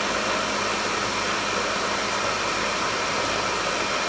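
Countertop blender motor running steadily on low speed, blending basil pesto while olive oil is streamed in.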